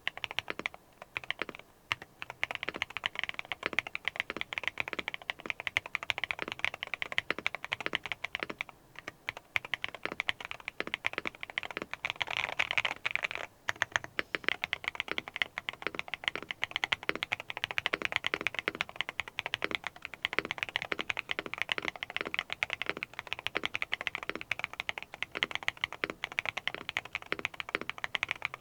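Continuous fast typing on a Neo70 mechanical keyboard fitted with Akko Botany long-pole switches and KeyTalk Wandering Earth keycaps: a loud, high-pitched, clacky keystroke sound, broken by a few brief pauses.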